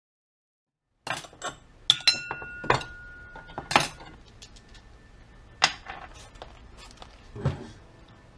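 Small metal parts and tools clinking and clattering on a workbench, a series of sharp knocks, one of them followed by a short metallic ring. It starts after about a second of dead silence.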